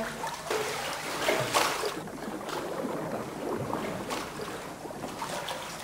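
Water splashing and sloshing as a swimmer moves her arms and legs in a test tank, with a few louder splashes in the first two seconds.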